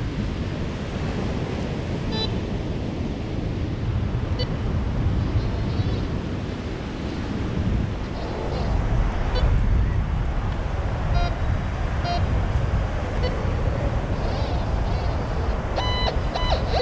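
White's MX7 metal detector giving short, scattered beeps as its coil is swept over wet sand, with a quick run of several beeps near the end. Behind it, steady wind noise on the microphone and surf.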